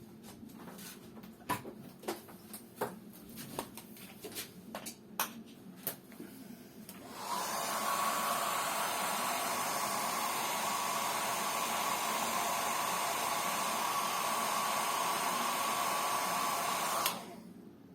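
A series of light clicks and taps, then a hair dryer blowing steadily with a constant whine for about ten seconds before it is switched off. It is drying a test dab of freshly mixed leather paint so its true colour can be judged.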